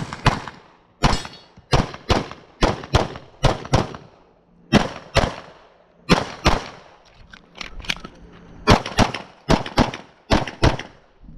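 A Glock 34 9mm pistol firing rapidly, mostly in quick pairs a few tenths of a second apart, with more than twenty shots and a couple of brief pauses.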